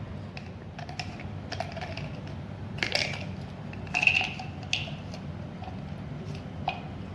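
Small clicks and crackles of a tablet pack being opened and handled to get the tablets out, with louder crackles about three and four seconds in.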